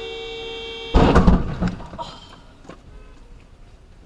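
A car horn sounds a steady blast for about a second. It is cut off by a loud, sudden thump and rattle that dies away over the next second, followed by a few faint clicks.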